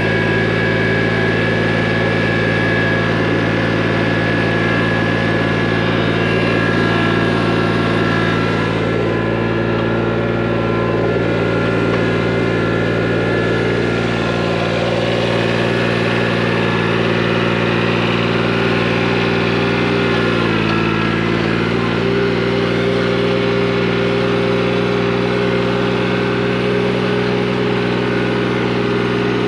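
John Deere 655 compact tractor's 16 hp diesel engine running steadily, close up, while the tractor tows a roller. Its note drops slightly about two-thirds of the way through and then holds steady.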